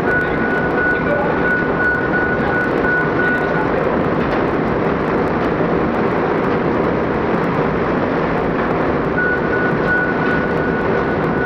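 Heavy crane engine running steadily under load, with a rapid, high-pitched repeating warning beeper. The beeper stops about four seconds in and starts again near the end.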